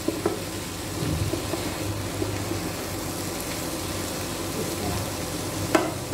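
Chopped vegetables and paneer sizzling as they fry in a nonstick pan, gently stirred with a spatula that scrapes through them. There is a light knock just after the start and a sharp tap of the spatula on the pan near the end.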